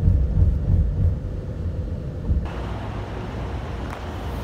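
Low, uneven rumble of a taxi on the road, heard from inside the cabin. About halfway through it changes abruptly to a weaker rumble with a brighter hiss.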